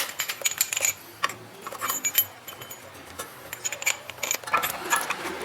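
Irregular metallic clinks and taps as a brake caliper piston tool is fitted to a rear brake caliper to push the piston back in, with small steel parts knocking and ringing briefly.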